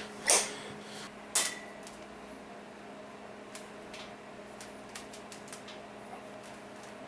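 Two sharp clatters about a second apart, then a few faint ticks over a steady low hum.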